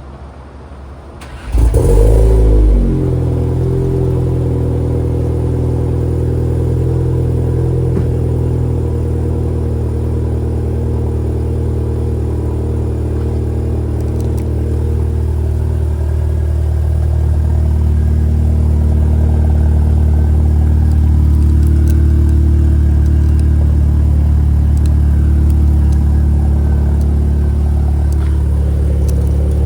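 Audi S3's turbocharged four-cylinder cranks and starts through a newly fitted ECS Tuning valved, resonated 3-inch catback exhaust about a second and a half in. It flares briefly in revs, then settles into a steady, deep idle.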